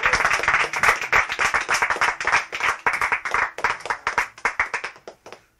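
Applause: hand clapping as a song ends, dense at first, then thinning out and dying away about five seconds in.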